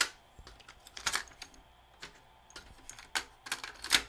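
Sony TC-WA8ESA double cassette deck's transport buttons and mechanism clicking and clunking, about ten irregular sharp clicks, bunched together near the end.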